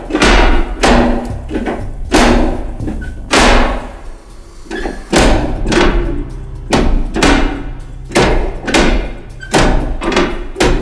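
Heavy metal parts of a vintage farm machine knocked and worked by hand, giving repeated clanks and thuds a little under a second apart, each ringing briefly.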